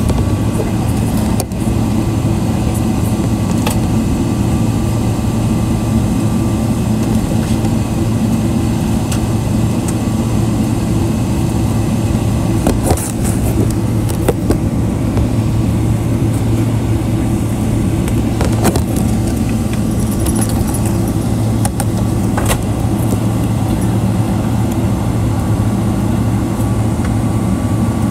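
Inside the cabin of a Boeing 777-300ER taxiing: a steady low hum of the GE90 engines and cabin air, with a few sharp clicks about a second and a half in, around 13 and 19 seconds in, and near 22 seconds.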